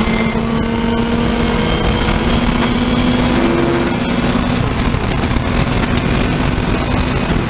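Racing saloon's engine held at full throttle, heard from inside the car, its pitch rising slowly as the car accelerates hard in a high gear, over heavy wind and road rush.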